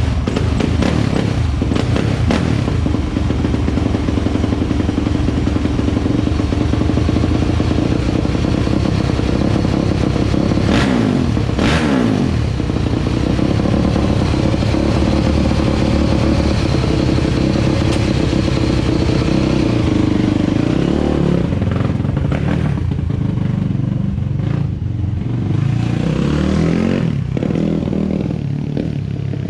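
2001 Yamaha YZ426F's 426 cc four-stroke single-cylinder engine running loudly. It is revved up and back down sharply about eleven seconds in, settles lower past the twenty-second mark, and is blipped several times near the end.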